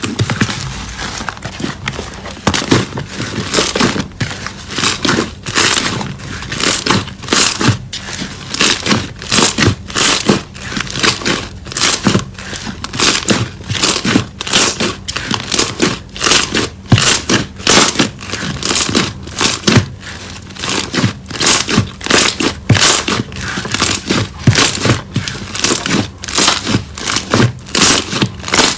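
Slime being squeezed and pressed by hand, crackling and popping in repeated presses about one and a half times a second.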